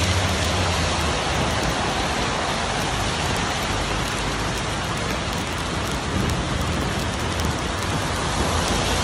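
Heavy rain and hail falling on an asphalt street, a steady hiss. A vehicle drives past on the wet road at the very start.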